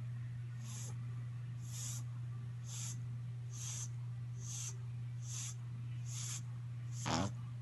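French bulldog snoring in its sleep: a hissy, wheezy breath about once a second, with one louder snort near the end. A steady low hum runs underneath.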